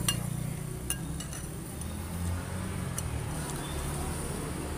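Metal spoon clinking a few times against a ceramic bowl while stirring chicken rice porridge, over a low steady rumble.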